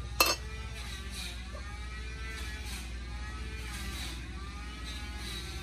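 A cleaver knocks once, sharply, on a wooden chopping block a quarter second in, against a steady low hum.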